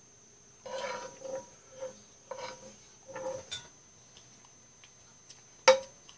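A metal spoon scraping fried rice across a non-stick frying pan in several short strokes, with a faint ringing from the pan, then one sharp clink of spoon on pan near the end.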